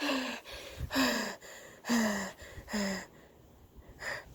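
A person breathing hard in short voiced gasps, four of them about a second apart, each dropping in pitch, then quieter with one faint breath near the end.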